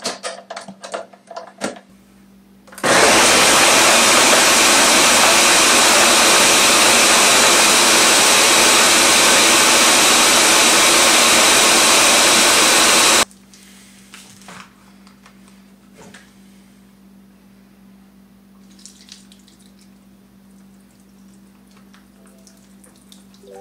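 A few clicks as the Ninja countertop blender's pitcher and lid are fitted, then the blender runs at full speed for about ten seconds, blending a wet marinade, and cuts off suddenly.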